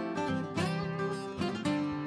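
Background music on acoustic guitar, chords strummed and plucked.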